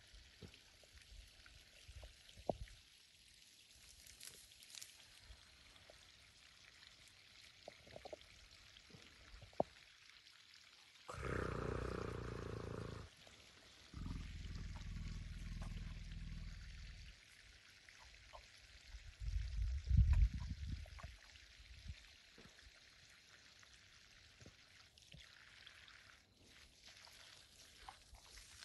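Young elephant calf grazing, with small clicks and rustles of grass being plucked. Near the middle come a few louder, low, breathy sounds, each a second or two long.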